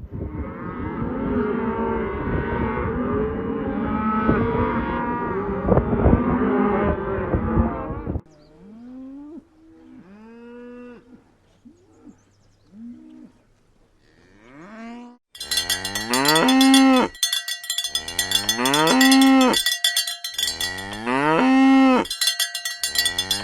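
Cattle mooing. At first many cows call over one another; after about eight seconds a few scattered moos follow. Near the end a single loud moo repeats about every two and a half seconds over steady high ringing tones.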